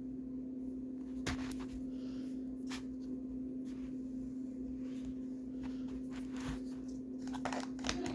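Scattered light clicks and rustles of small plastic toy pieces being handled and fitted together, a few at a time and more near the end, over a steady background hum.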